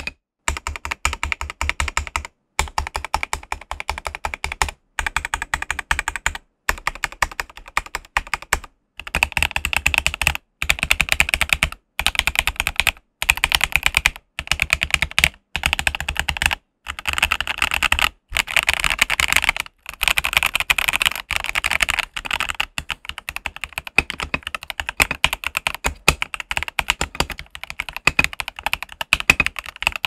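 Feker IK75 V3 gasket-mount mechanical keyboard, stock with its aluminium plate and lubed, filmed switches under OM-profile keycaps, being typed on fast. Keystrokes come in rapid runs separated by short breaks.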